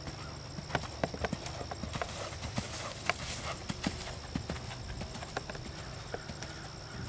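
Hoofbeats of a ridden horse moving over sand arena footing, a run of irregular dull thuds that is densest in the first few seconds and thins out toward the end.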